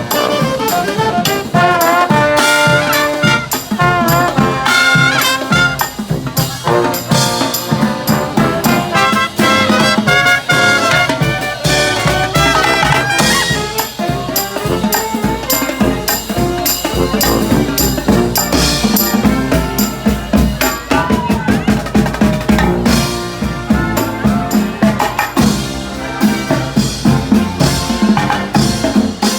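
Brass marching band with drums playing a lively tune, trumpets and trombones over a steady beat of drum strokes.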